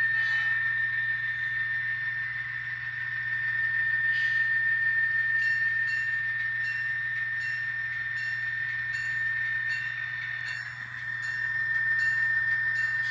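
ESU LokSound decoder in an N scale Illinois Central Gulf GP-35 playing diesel locomotive engine sound from its small speaker as the model backs slowly: a steady low drone under a steady high whine. Faint regular ticks come in about two a second partway through.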